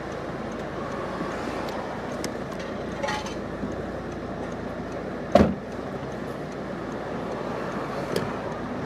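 Steady street and traffic noise around a parked car, with one sharp thump about five seconds in and a couple of faint clicks.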